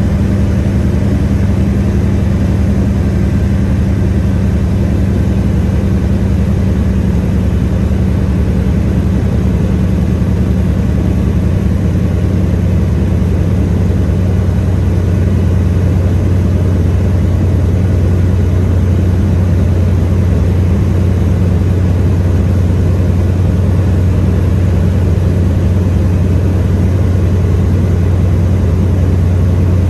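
Floatplane's piston engine and propeller droning loud and steady, heard from inside the cabin during the descent on approach to a water landing. The note deepens slightly about halfway through.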